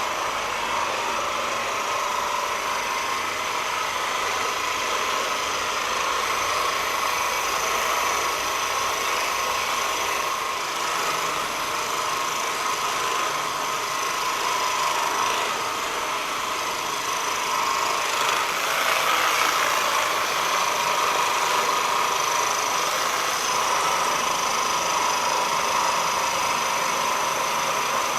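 Handheld percussive massage gun running steadily on the shoulder, its motor making a continuous buzzing hum.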